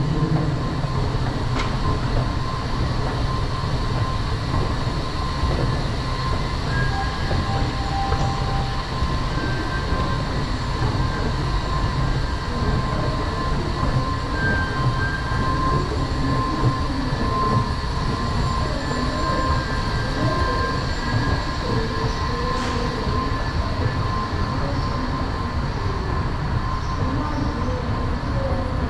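Washington Metro train running on the rails: a steady rumble with thin, steady high tones over it.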